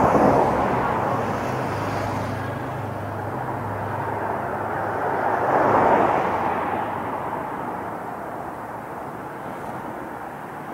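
Outdoor city noise: an even rushing rumble that swells just after the start and again about six seconds in, then eases off.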